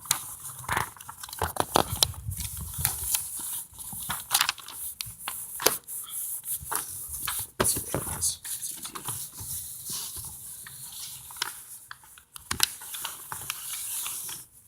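Sheets of paper being handled, folded and creased by hand: irregular crisp crinkles, rustles and light taps.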